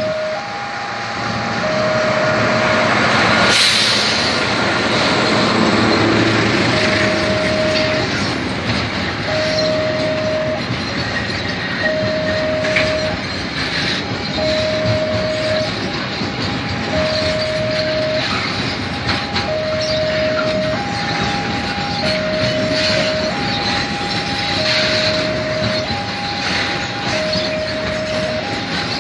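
Loaded freight train passing at a level crossing. The locomotive goes by loudest about four seconds in, then a long string of wagons keeps up a rumble with clicks over the rails. Over it the crossing alarm sounds a steady two-tone signal, alternating a lower and a higher tone a little over once a second.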